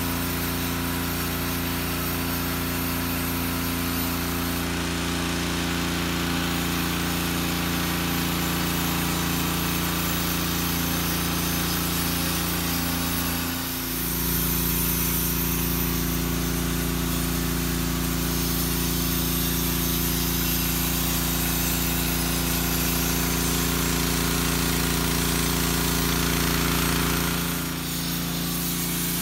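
A pump draining the swimming pool runs with a steady low drone. Its pitch shifts slightly about halfway through and again near the end.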